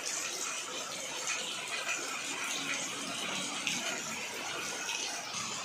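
Heavy rain pouring onto a flooded road, a steady hiss with crackling spatter from drops hitting standing water.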